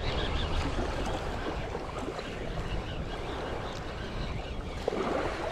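Steady wash of small waves with some wind.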